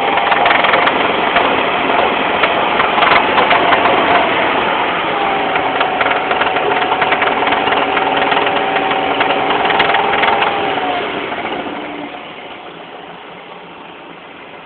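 BMW M43 four-cylinder petrol engine running with a loud knock in the engine. A steady whine sits over it for part of the time. The sound falls much quieter about twelve seconds in.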